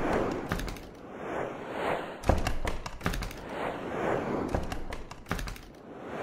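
Animated-intro sound effects: whooshes that swell and fade about every two seconds, cut by sharp hits and clicks, the loudest a little over two seconds in.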